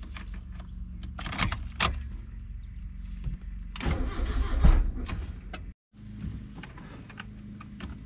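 Key clicks in the ignition, then the turbocharged Mazda Miata's starter cranks the engine for about two seconds without it catching: a no-start that the owner expects is down to the ECU's startup tune. After a sudden cut, a steady low hum.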